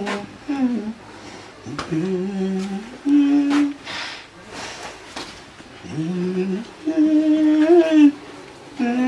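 A man humming a tune to himself in short phrases of held, gliding notes, with pauses between them.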